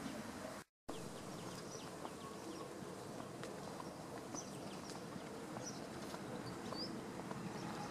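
Rural outdoor ambience: a steady background rush with faint, scattered high bird chirps. The sound drops out completely for a moment just under a second in.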